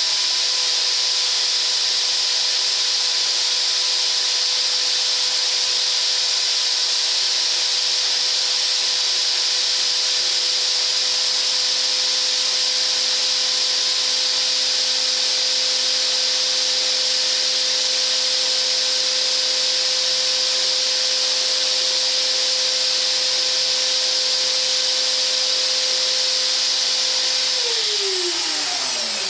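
Drill Master drill bit sharpener driven by a power drill, grinding a dull twist drill bit: a steady motor whine over a loud grinding hiss. Near the end the motor spins down with a falling pitch.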